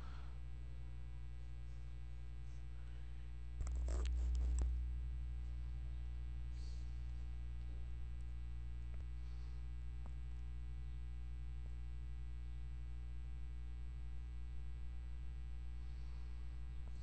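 Steady low electrical mains hum with a stack of overtones, with a brief louder noise about four seconds in.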